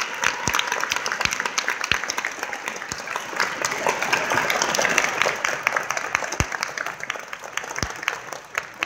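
Audience applauding, many overlapping claps with crowd chatter underneath; the clapping thins out near the end.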